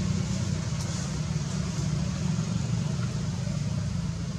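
A steady low rumble that does not change.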